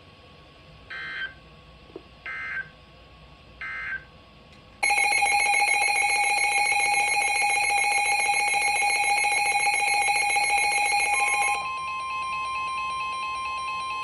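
Emergency Alert System broadcast tones. First come three short digital data bursts about a second apart, the end-of-message code of the previous alert. About five seconds in, a loud, harsh electronic alert tone with several steady pitches starts for the next warning and lasts about seven seconds, then drops to a quieter steady single tone.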